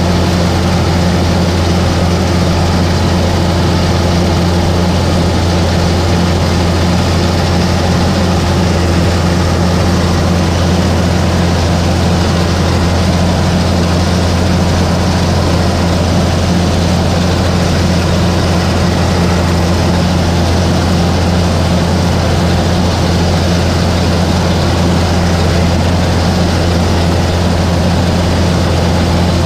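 Kubota combine harvester's diesel engine running steadily as the machine cuts rice, heard from the operator's seat as a loud, even drone that does not change.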